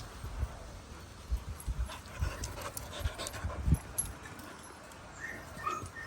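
Small dogs playing: irregular low thumps and scuffles of paws and bodies on the floor, with a few brief high squeaks near the end.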